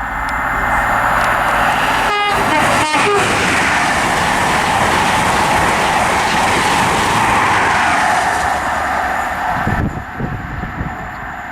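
High Speed Train (InterCity 125) passing at speed: the Class 43 power cars' diesel engines and wheel noise build into a loud rush that drops away suddenly near the end as the train clears. Two short horn blasts sound about two and three seconds in, the warning tones trains give here because the platform edge is not fenced off.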